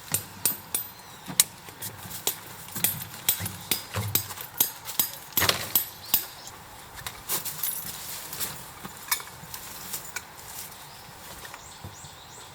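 A quick, irregular run of sharp clicks and knocks, a few a second, that thins out in the last few seconds.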